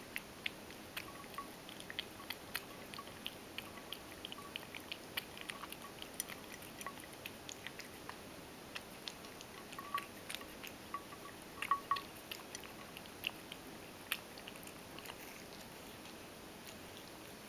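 Ragdoll cat eating from a stainless steel bowl: irregular chewing and crunching with sharp clicks, which stop a couple of seconds before the end.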